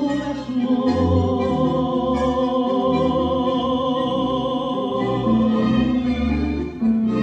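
Tango music: a held melody line with a wavering vibrato over a steady bass line, with a brief drop in level near the end before the next phrase.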